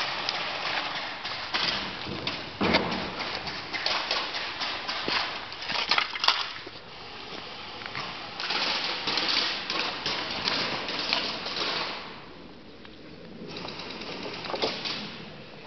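Ongoing clatter and rustling with many sharp clicks and knocks, denser and louder for a few seconds past the middle, then easing off briefly.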